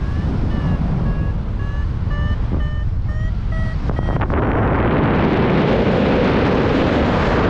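Wind buffeting the microphone in paraglider flight, with a flight variometer beeping short tones about twice a second, the beeping that signals a climb. About halfway through the wind gets louder and covers the beeps.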